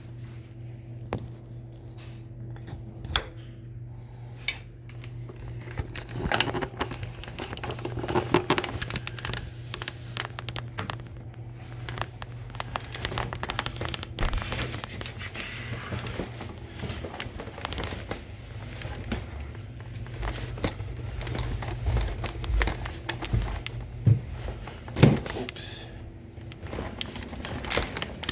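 Shark Stratos vacuum cleaner running with a steady low hum while its head clicks, rattles and knocks as it is worked over a hard stair landing, with a few louder knocks near the end.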